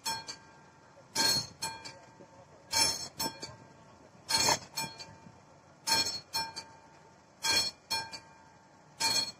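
Classic mechanical level-crossing warning bell striking about every one and a half seconds. Each loud ding is followed by one or two quicker, softer strokes, and a ringing tone hangs between the strikes. The crossing is active, warning of an approaching train.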